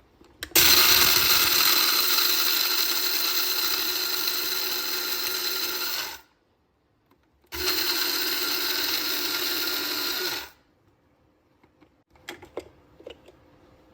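Cuisinart electric coffee grinder running while grinding coffee beans, in two bursts: one of about five and a half seconds, then after a short pause another of about three seconds, each starting and stopping abruptly. A few light clicks follow near the end.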